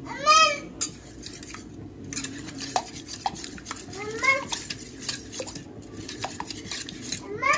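Wire whisk beating raw eggs in a metal bowl, a rapid run of light clinks and taps against the bowl from about two seconds in. Short high-pitched calls are heard at the start, about four seconds in, and near the end.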